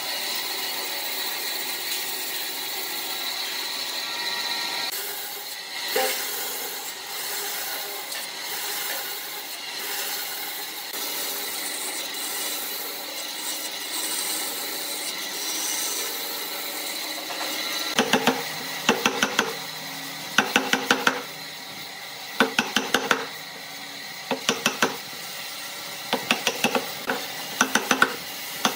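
Bandsaw running steadily while its blade cuts a row of kerfs into a thick wooden slab. About two-thirds of the way through, this gives way to quick bursts of sharp knocks as a chisel breaks out the waste wood between the kerfs.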